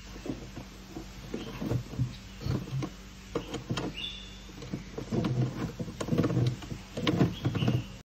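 African grey parrot cracking and chewing an almond held in its foot: a run of crisp crunches and clicks, scattered at first and then dense and loudest over the last few seconds.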